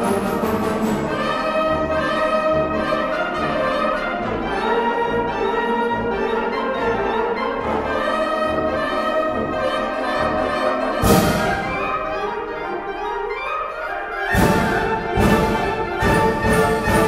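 Concert wind band playing, brass and woodwinds over a repeating low pulse. About eleven seconds in comes a percussion crash and a thinner passage, then from about fourteen seconds the full band returns over evenly spaced percussion strikes.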